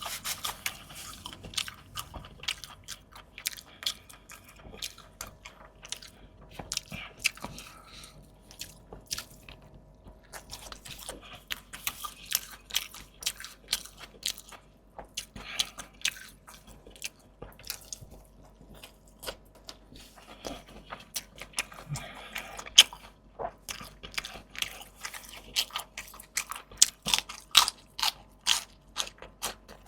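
Close-miked eating: a person biting and chewing crunchy food, with irregular runs of sharp crunches and short pauses between mouthfuls.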